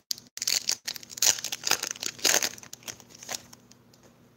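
Foil wrapper of a Pokémon Lost Thunder booster pack crinkling and tearing as it is ripped open, a quick run of sharp crinkles lasting about three seconds.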